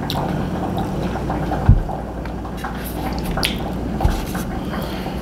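Steady bubbling of liquid, with two low thumps about one and a half and four seconds in.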